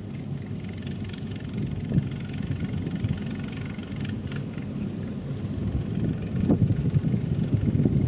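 Punni Grain Cruiser combine harvester running as it cuts standing wheat: a steady engine-and-machinery drone that grows louder as the machine approaches, rougher over the last couple of seconds.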